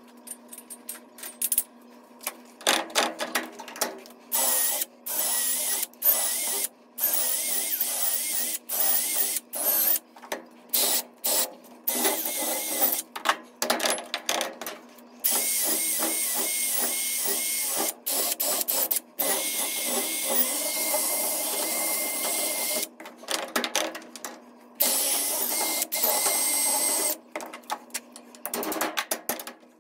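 Drill boring out the wooden handle stub from the eye of an axe head clamped in a bench vise, running in stretches of a few seconds with a whine that wavers under load. It is chopped by frequent abrupt cuts, with short runs of sharp knocks from a hammer driving a punch, most of them near the start and the end.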